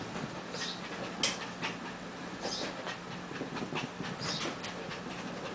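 A small puppy scampering on carpet: a light patter of quick taps and clicks, with a short high hiss every second and a half or so and one sharper click a little over a second in, over a steady low hum.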